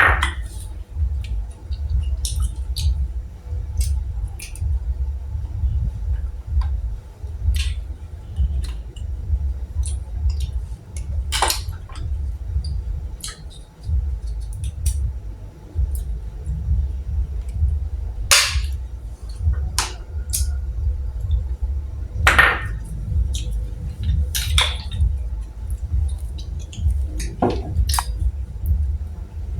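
Eating boiled golden apple snails: a handful of short, sharp sucks and clinks of the shells, a few seconds apart, over a constant low rumble.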